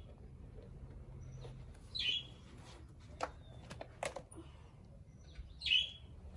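A bird outdoors giving short chirps, one about two seconds in and another near the end. Between them come a few sharp little taps as a soccer cleat is knocked and shaken to clear rubber turf pellets out of its studs.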